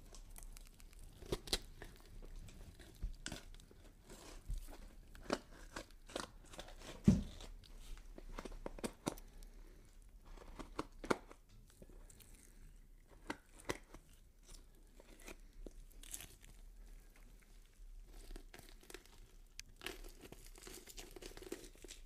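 Horror foley sound effect of skin being cut and peeled: irregular short tearing and crackling sounds, with one louder low hit about seven seconds in and a longer stretch of tearing near the end.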